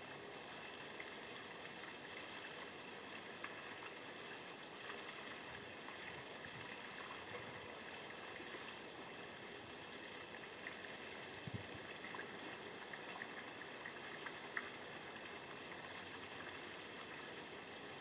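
Steady hiss from a security camera's microphone, with a few faint clicks and scrapes from a black bear working at a bird bath, scraping ice out of the bowl.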